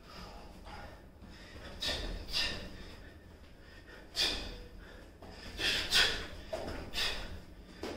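A boxer's short, sharp exhales timed with his punches while shadow boxing: about eight quick breaths, some coming in pairs.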